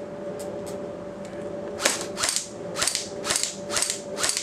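Airsoft GI custom Silent Death airsoft electric gun (AEG) firing single shots on semi-auto, about two a second, starting about two seconds in, after a couple of faint clicks.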